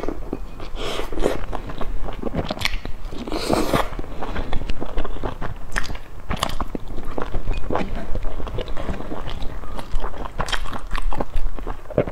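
Close-miked eating sounds of a person biting into and chewing a soft steamed bun dipped in chili oil: wet mouth smacks and clicks at an irregular pace, with one longer noisy sound about three and a half seconds in.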